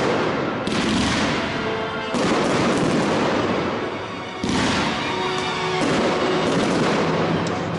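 Aerial firework shells bursting overhead in a series of loud booms a second or two apart, each trailing off in echo and crackle.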